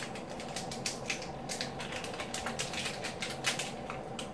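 Thin plastic freezie tube crinkling and crackling in irregular bursts of clicks as fingers pull and work at its stuck top to get it open.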